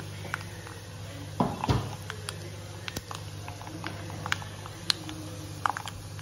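A tempering of lentils, seeds and dried red chillies frying in a little hot oil in a kadai, giving scattered small pops and crackles over a steady low hum, with a couple of louder knocks about a second and a half in.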